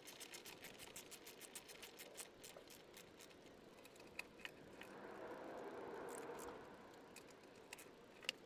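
Socket ratchet clicking quickly and evenly, several clicks a second, as it turns a 10 mm bolt on the air filter box, then a few single clicks. A soft hiss swells and fades in the middle.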